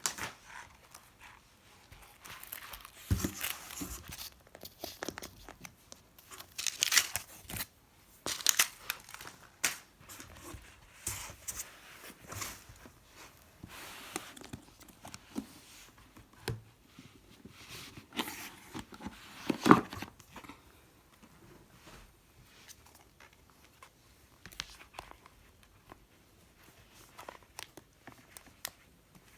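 Packaging being torn open and crinkled by hand, with irregular rustling, ripping and handling noises. The loudest is one sharp crackle about twenty seconds in.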